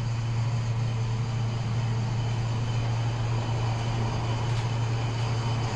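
Steady low hum of a ship's machinery, with an even hiss above it.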